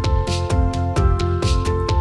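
Background music with a steady drum beat over held chords and a strong bass line.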